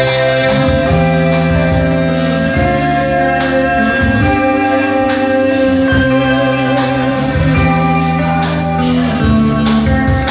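Live rock band playing amplified music: a male singer on a microphone over a drum kit with a steady cymbal beat, electric guitar and keyboard, with long held notes.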